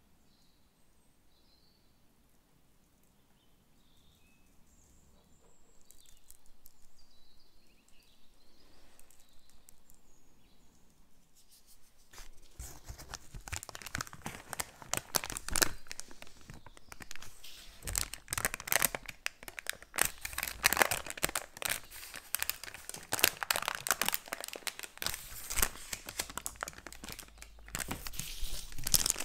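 Parchment (baking) paper crinkling and crackling as it is rolled and pulled out from under a cake. It sets in about twelve seconds in, after a faint, quiet stretch, and goes on as a dense run of crisp crackles.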